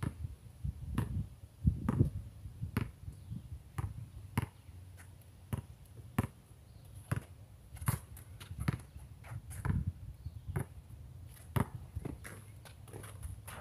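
Basketball being dribbled on an outdoor concrete court: irregular sharp bounces, roughly one or two a second, over a low rumble.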